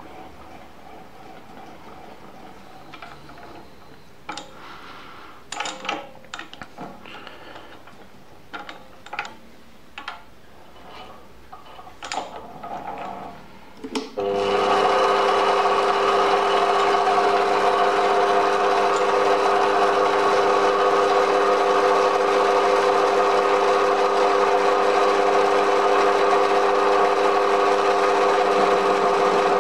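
A run of light clicks and knocks, then about halfway through a small metal-working lathe is switched on and runs steadily, its chuck spinning, with a steady hum carrying a strong pitched tone.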